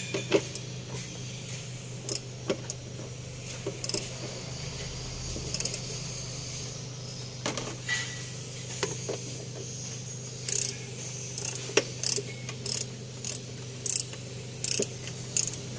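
Hand wrench working the bolts of an engine's timing belt cover: scattered metal clicks, then a regular run of quick clicks about twice a second in the last few seconds, over a steady low hum.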